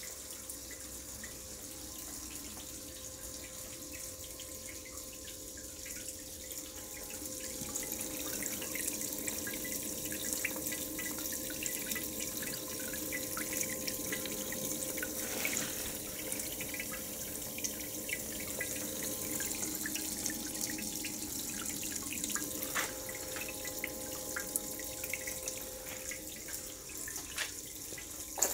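Water running from a pipe down a small metal sluice and splashing into a bucket and tub of water, with a steady hum underneath and a few small drips and ticks.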